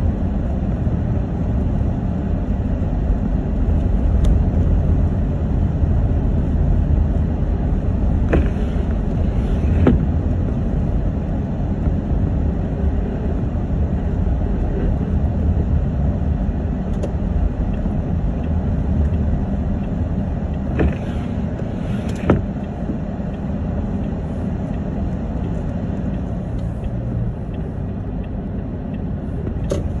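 Steady low rumble of a car driving slowly on a snow-covered street, heard from inside the cabin: engine and tyre noise. A few short clicks cut through it, two about a third of the way in and two more about two-thirds through.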